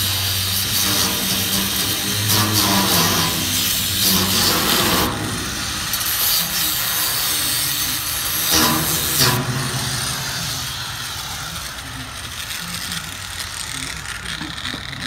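Power tool cutting the steel of a diesel tank: a harsh, steady sawing noise that eases off and fades over the last several seconds.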